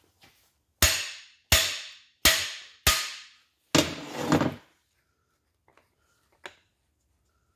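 Hammer striking the end of a cam bearing installer's steel driver bar, driving a cam bearing into its bore in a Pontiac 400 block. There are six sharp, ringing blows about two-thirds of a second apart, then two light taps.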